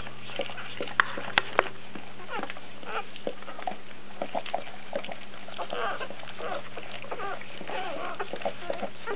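Newborn Doberman puppies squeaking and whimpering in short, high calls. A few sharp clicks come about a second in.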